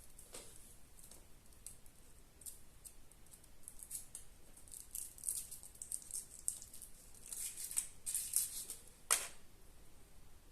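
A Kinder Surprise egg being handled and opened: crackling foil and rattling, clicking plastic in scattered bursts, busier in the second half, with one sharp click near the end.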